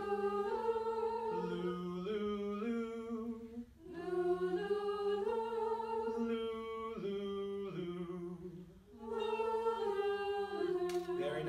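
A group of voices singing short stepwise note patterns on the syllable "lu", read from a teacher's hand-staff signs. The singing comes in three phrases of a few seconds each, with short breaks between them.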